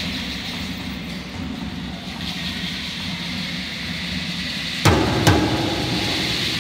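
A hand-held matachin drum struck twice, sharply, about five seconds in, starting the dance beat, over a steady background hum of the crowded room.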